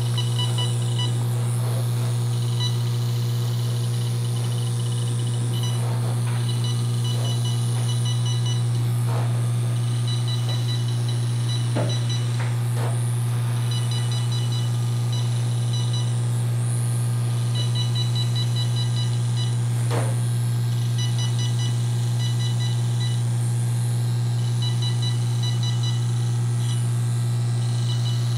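Nordlys FRAX 1940 fractional laser firing as its roller-tip handpiece is passed over the skin: runs of rapid high beeps, each a second or two long, repeating every few seconds over a steady low hum.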